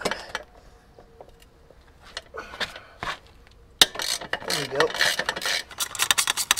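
Socket ratchet on a long extension clicking as it works a skid plate bolt loose: a few scattered clicks and knocks, then from about four seconds in a fast run of ratchet clicks.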